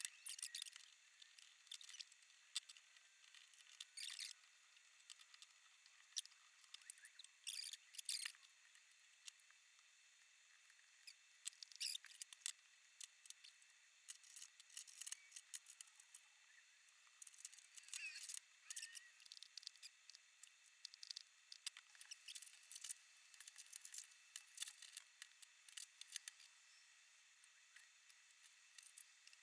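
Faint, irregular clicks, taps and scrapes of hard 3D-printed plastic parts being handled, fitted together and set down on a wooden desk during assembly.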